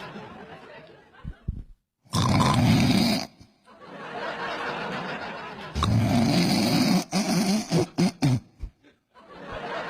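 A man imitating heavy snoring: long drawn breaths broken by two loud rasping snores, the first about two seconds in and the second about six seconds in, then a run of short sputtering snorts near the end.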